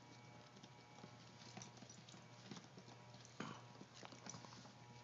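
Chorkie puppies' claws clicking on a hardwood floor: faint, scattered taps, the loudest about three and a half seconds in.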